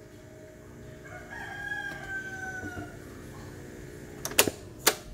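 Toshiba RT-8800S boombox playing the last held chord of a track through its speakers, with a long falling tone about a second in. Near the end come two sharp clicks as the cassette deck's piano keys are pressed to stop the tape.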